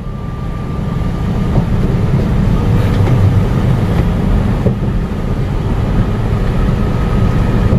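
Hyliion hybrid Freightliner Cascadia semi truck cruising at highway speed, heard from inside the cab: a steady low rumble of engine and road noise.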